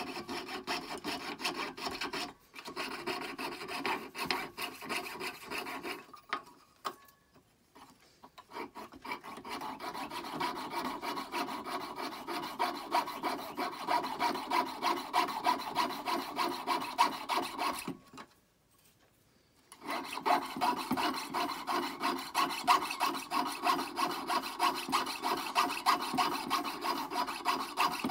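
Jeweler's saw blade cutting through a metal fork in quick back-and-forth rasping strokes, the blade freshly waxed as it goes into a turn. The sawing stops twice briefly, about a quarter of the way in and about two-thirds of the way through.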